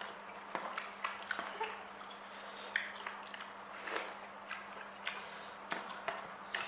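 Close-up eating sounds: a person chewing food, with irregular wet smacks and small clicks of the mouth, over a faint steady hum.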